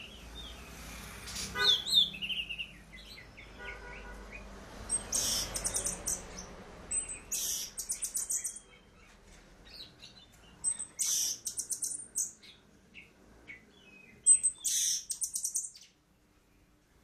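Caged songbird singing: short bursts of rapid, very high trills every two to four seconds, with softer chirps between.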